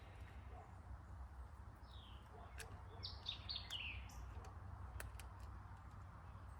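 Birds chirping faintly, a few short falling chirps in the middle, over a low steady rumble, with a few sharp clicks.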